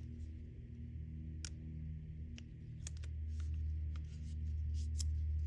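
Soft background music with sustained low notes, over scattered light clicks and rustles of gloved hands handling plastic blood-collection tubes and pressing a barcode label onto one.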